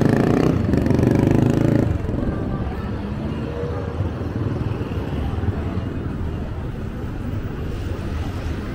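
City street traffic: a passing motor vehicle's engine is loudest for about the first two seconds, then a steady hum of traffic.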